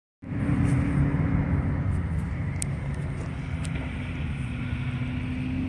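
Steady low engine rumble with a constant hum, starting suddenly just after the start.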